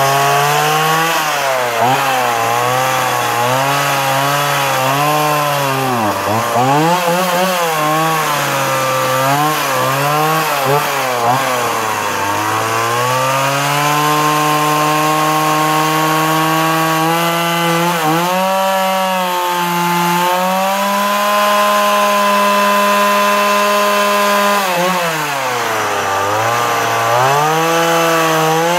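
Stihl MS 170 chainsaw's small two-stroke engine running under throttle while carving into a wooden post. Its pitch keeps rising and falling with deep dips as the chain loads up in the cut through roughly the first twelve seconds. It then holds a steadier, higher pitch, dips once more about 25 seconds in, and climbs again.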